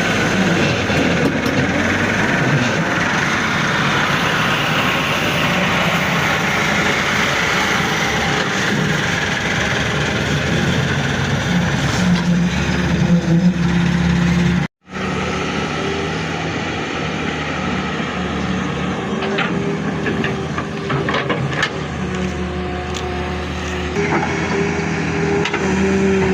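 Heavy diesel engines of an excavator and a tractor running steadily at work, with a constant engine hum. The sound cuts out abruptly for a split second about halfway through, and a few sharp knocks and clanks come in the second half.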